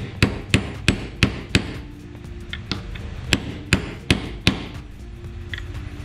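Light hammer taps on a socket, driving a replacement ball bearing into a radiator fan motor's housing by its outer edge. The taps come about three a second: five quick ones, a pause, then four more.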